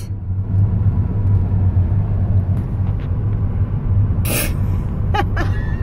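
Steady low rumble of a car's road and engine noise heard from inside the cabin while driving. A short hiss cuts in about four seconds in, and a brief voice sound comes near the end.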